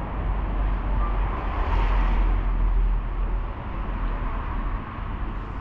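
City street traffic on a wet road: a steady low rumble, with a vehicle passing about two seconds in, its tyre hiss swelling and then fading.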